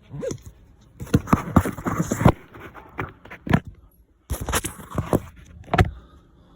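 Irregular clicking and clunking from the starter of an Opel Astra H's Z17DTH diesel as it tries and fails to crank the engine, in clusters of knocks with short pauses between; the owner suspects the starter motor.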